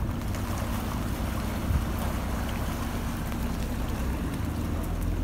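Steady low motor rumble with wind on the microphone; the low rumble swells near the end.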